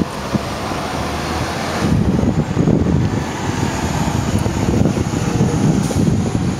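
City transit bus driving past close by: engine and tyre noise, with wind buffeting the microphone.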